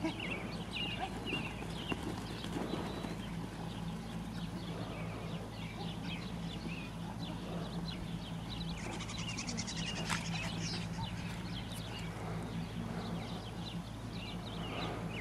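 Small herd of goats moving about a dirt pen ahead of a herding dog: scattered hoof steps and animal noises, over a steady low hum with many short high chirps.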